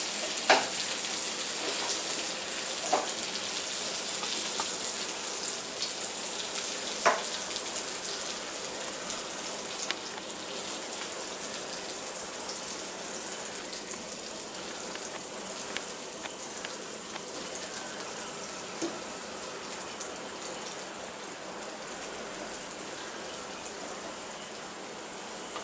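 Hot oil sizzling and crackling steadily in a kadhai of frying stuffed green chillies, slowly dying down, with a few sharp clicks in the first ten seconds.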